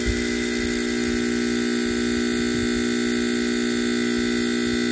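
Steady electrical hum from a three-phase inverter compressor's motor fed fixed AC socket power through a start relay and thermal protector. The motor is stalled and does not turn, because its windings end up connected in series, and it is heating up toward burning out.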